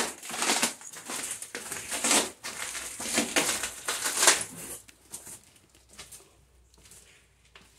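Footsteps crunching over grit and debris on a concrete floor, about two steps a second, growing much fainter after about five seconds.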